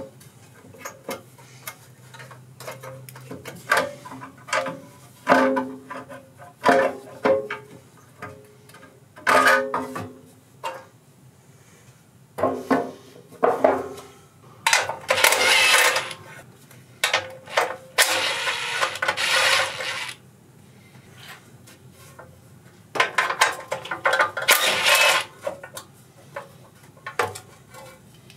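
Hand tools and metal engine parts clinking and knocking during hands-on work on a small engine, with three longer noisy stretches of a second or two each.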